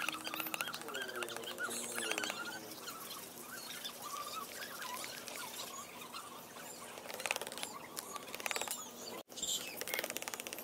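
Metal spoon stirring and scraping a thick, wet spirulina-and-egg paste in a stainless steel bowl: a quick, continuous run of small scrapes and wet clicks.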